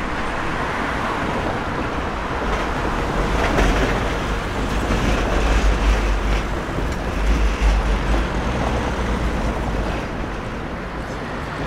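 A tram running past on a city street: a low rumble over a steady haze of traffic noise, swelling about three seconds in and easing off near the end.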